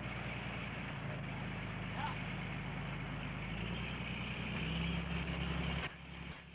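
Fishing boat's engine and deck machinery running steadily: a low engine hum under a whirring mechanical noise. It grows louder toward the end, then drops off suddenly a second before the end.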